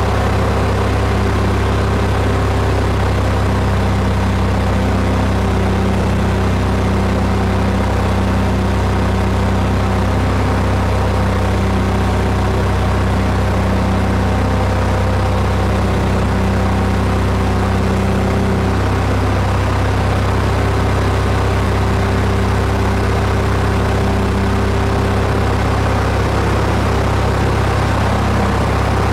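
Aircraft engine drone heard from inside the cabin, a loud steady hum with strong low tones and no change in pitch.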